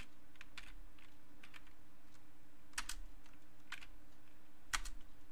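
Computer keyboard being typed on: irregular keystrokes entering a password and then typing it again to confirm, with a couple of harder key strikes about three seconds in and near the end. A faint steady low hum runs underneath.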